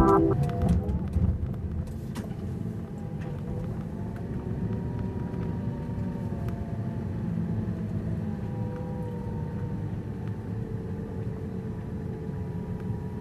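Lamborghini Gallardo LP550-2's V10 engine and road noise heard from inside the cabin as the car drives slowly, a steady low rumble with a faint wavering hum above it.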